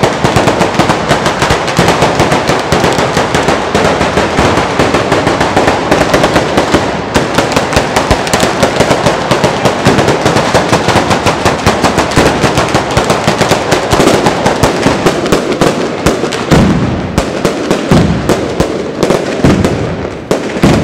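Daytime firework battery of firecrackers strung on lines over a street, going off as a dense, continuous rattle of rapid cracks. Heavier, more widely spaced bangs come in the last few seconds.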